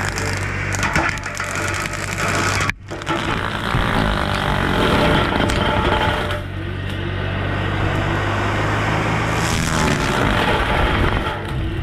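Bobcat E35 mini excavator's diesel engine running under load while its Baumalight CXC530 brush-cutter head spins and grinds into small trees. The sound cuts out briefly almost three seconds in.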